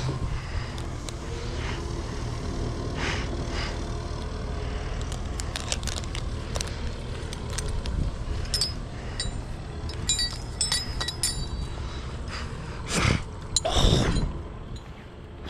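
Wind buffeting the microphone as a steady low rumble, with scattered light clinks and two louder knocking, rustling noises near the end.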